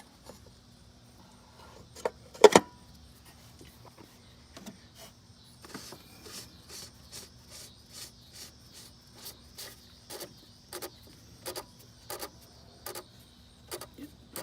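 Ratchet and 36 mm socket tightening a car's oil filter housing cap: a couple of louder knocks about two seconds in, then a run of evenly spaced sharp clicks, two to three a second. Crickets chirp steadily behind.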